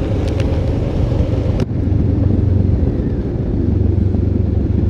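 Benelli TRK 702 X motorcycle's parallel-twin engine running steadily while riding, a low rumble with a hiss of road noise over it. The upper part of the hiss cuts out suddenly about a second and a half in.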